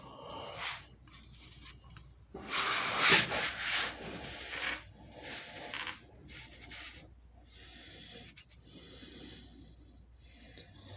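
Handling noise: rubbing and scraping on the phone's microphone as it is moved about, loudest for about two seconds starting two and a half seconds in, then quieter rustling.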